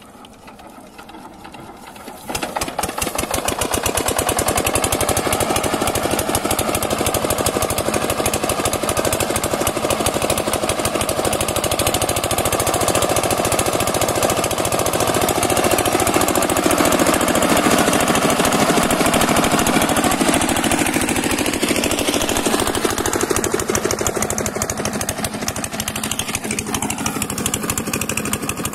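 Single-cylinder diesel engine of an 8 hp Shakti Bharat irrigation pump set catching about two seconds in, then running steadily with a fast, even knock while it drives the water pump. Its pitch dips and comes back up about two thirds of the way through.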